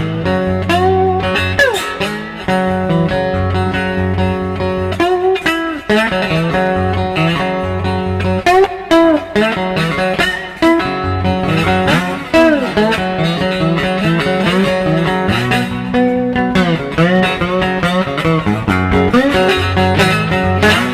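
Three-string resonator guitar with a dog-bowl cone, fingerpicked in a bluesy style: a repeating bass note under plucked melody notes, many of them bent or gliding in pitch.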